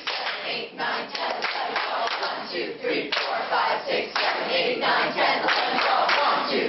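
A group of people shouting and calling out together, with scattered claps.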